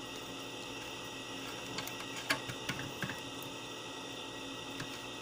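A few light clicks and taps from handling a small circuit board, its wires and a multimeter probe inside an opened plastic boombox case, most of them bunched together near the middle, over a steady background hiss.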